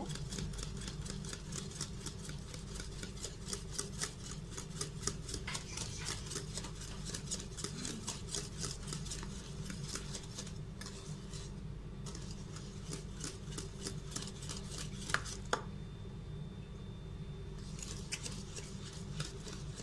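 Wire balloon whisk stirring hot, thick custard cream in a stainless steel pot, its wires clicking against the pot several times a second, with two brief pauses. The stirring melts a spoonful of butter into the freshly cooked cream.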